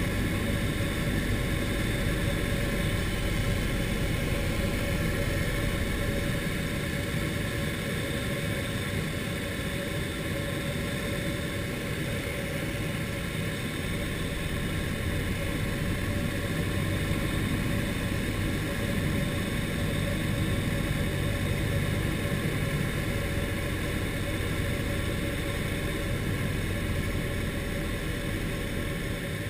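Turner T40 light aircraft's piston engine and propeller droning steadily, heard inside the cockpit with a hiss of airflow, on the landing approach.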